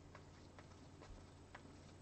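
Faint, irregular soft clicks of trading cards being flipped through by hand, over a low steady hum.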